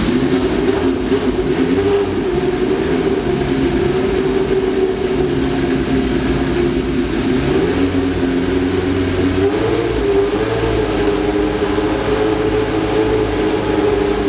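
Ford Cosworth V8 engine of a 1991 Osella Fondmetal Formula 1 car running at a steady fast idle, with a brief rise in revs about ten seconds in.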